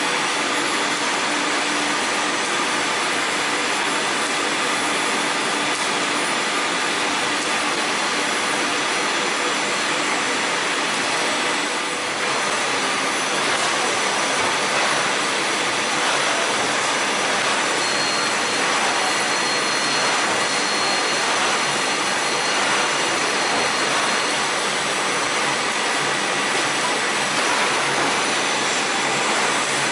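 Steady mechanical din of plastic bag production machinery running: a bottom-seal bag making machine and blown-film lines, an even whirring hiss with a few faint steady whines and no pauses.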